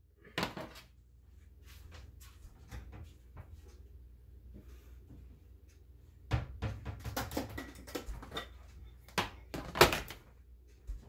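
Knocks and clatter of food-storage containers being fetched and handled: a busy run of small knocks from about six seconds in, then a sharp knock near the end as a glass dish is set down on the glass stovetop.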